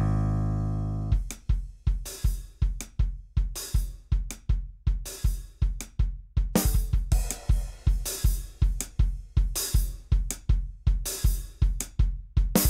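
Background music: a held low bass note fades for about the first second, then a fast, steady drum beat with hi-hat and snare drives on.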